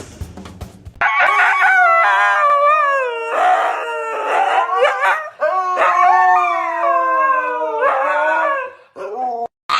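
A dog howling in long, wavering notes that glide up and down, starting about a second in and breaking off near the end.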